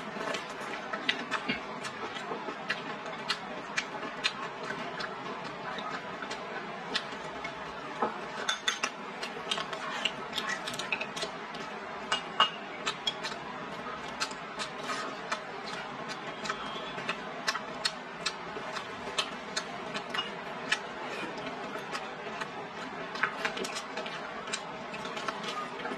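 Close-up eating sounds: chewing mouthfuls of stir-fried vegetables and pork, with frequent irregular sharp clicks of wooden chopsticks against the bowl.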